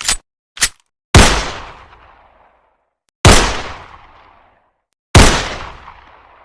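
Gunshot sound effect: two short sharp clicks, then three loud shots about two seconds apart, each trailing off in a long echoing decay.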